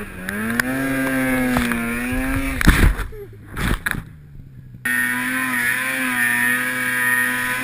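Two-stroke mountain snowmobile engine running at high revs through deep powder, with a loud thump about two-thirds of the way through as the sled lurches. The engine sound drops away for about two seconds, then comes back at steady high revs.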